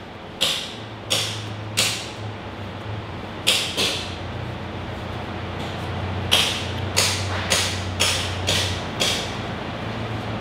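Paper towel rubbed and twisted inside the center cylinder of a Polarstar micro regulator: a string of short rustling swishes. There are a few near the start and a quicker run of about six in the second half.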